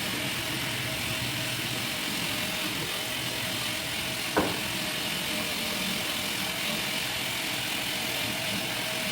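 Homemade ration vending machine prototype running steadily while it dispenses the grocery ration, a small motor hum with a single click about four and a half seconds in.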